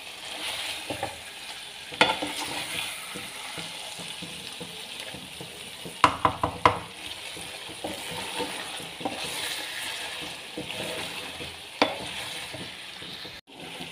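Chicken and potatoes frying in a thick masala in a metal pan, sizzling steadily while a wooden spatula stirs and scrapes through them. A few sharp knocks of the spatula on the pan stand out: one about two seconds in, a quick cluster around the middle, and one near the end.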